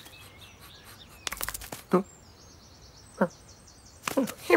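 Cartoon cat's short vocal sounds, three times, each sliding down in pitch. A quick run of clicks comes before them, and a faint high chirping repeats in the background.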